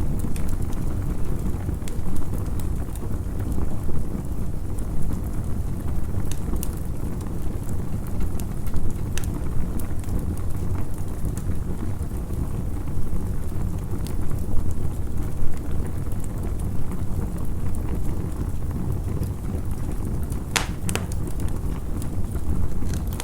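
Campfire crackling, with scattered sharp pops over a steady low rumble.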